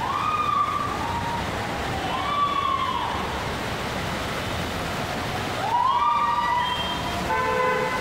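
Cars pushing through deep floodwater over a steady rush of water and spray. Several short pitched cries that rise and then level off cut across it, and a brief steady pitched blare comes near the end.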